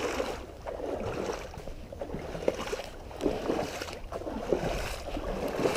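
Shallow stream water splashing and sloshing around a wading angler's legs, in an uneven run of sloshes.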